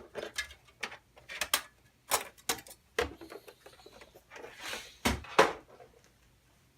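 Scattered clicks and knocks of computer hardware being handled, at irregular intervals, with a short scraping rustle about four and a half seconds in.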